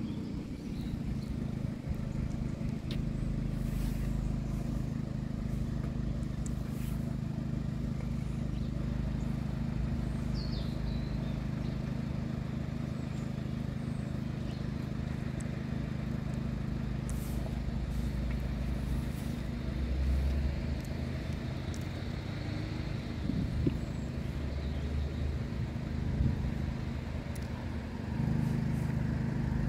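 An engine idling steadily, a low, even hum, growing a little louder near the end.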